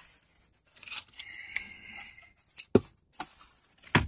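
Rustling and clicking as a hand handles the wiring harness and plastic connectors behind a car stereo deck, with two sharp clicks, one near the middle and one at the end.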